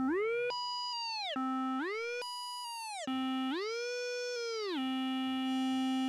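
A synthesizer tone bends up about an octave and back down several times, with a smooth slide each way, then holds on the low note.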